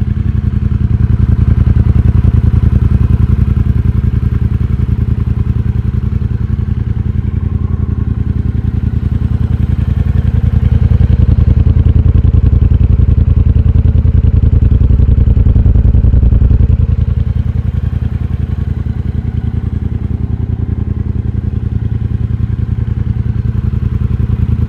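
Triumph Bobber's 1200 cc parallel-twin engine running through Motone Mayhem Shorty end cans. It is held at higher revs twice, from about a second in and again for several seconds mid-way, then settles back to idle.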